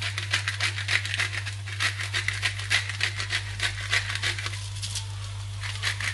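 Glass pepper-grinder jar being twisted by hand, grinding black pepper in a rapid run of gritty clicks, about four a second, with a short pause near the end.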